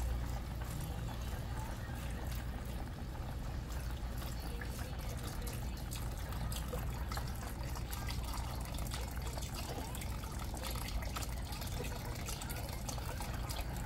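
Chicken broth poured steadily from a carton into a pan of vegetables, an unbroken trickle of liquid, over a low steady hum.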